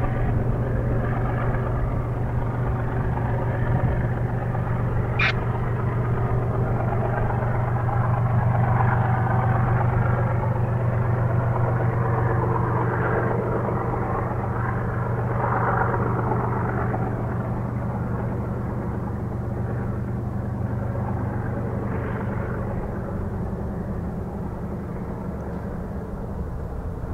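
A steady, low drone of a large engine with a rushing noise above it, slowly fading over the last third. A brief high squeal sounds once about five seconds in.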